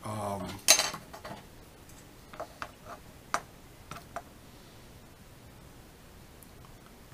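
Small plastic model-kit parts being handled on a cutting mat: one sharp click a little under a second in, then a handful of light clicks and taps over the next few seconds.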